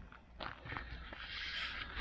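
Footsteps on a dirt path, a few separate steps, with a soft rustle of jacket fabric near the end.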